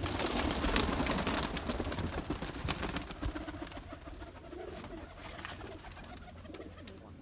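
Domestic pigeons cooing in their loft cages. For the first few seconds there is a louder rustling and scraping with many small clicks.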